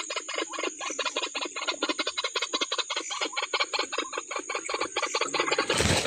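White-breasted waterhen (ruak-ruak) calling, a fast, even run of harsh croaking notes at about nine a second. Just before the end comes a loud rustle of leaves and stems being pushed through.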